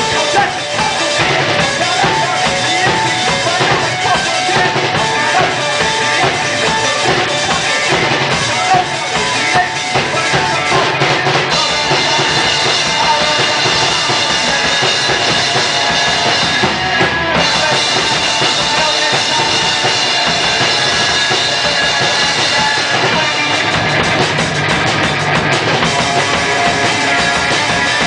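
Rock band playing a song live and loud, the drum kit prominent with kick and snare driving a steady beat under the band.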